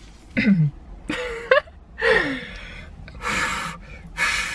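A person's non-speech vocal sounds: a few short gliding exclamations, then a run of sharp, gasping breaths about a second apart.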